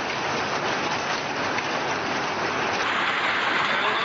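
Hail and rain pelting down in a steady, dense hiss with scattered ticks. About three-quarters of the way through, a different recording of similar noise takes over.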